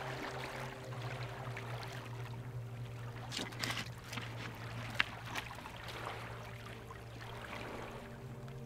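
Small fjord waves lapping and washing against a stony shoreline, with a few sharp clicks and splashes near the middle.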